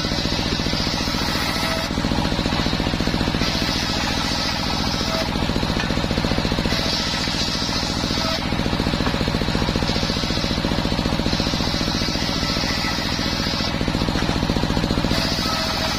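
Homemade engine-driven circular-saw bench ripping waru (sea hibiscus) boards: the blade's high cutting hiss comes and goes in passes of one to two seconds, about six times, over the steady rapid beat of the engine that drives it.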